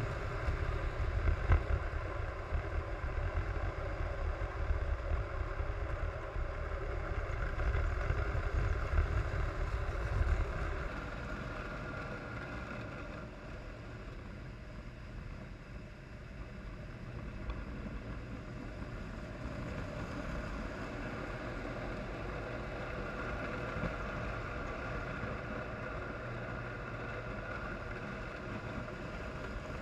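Lionel toy trains running past on the layout's track: a steady rumble of wheels and electric motors, loudest for the first ten seconds or so, then quieter before building again in the second half.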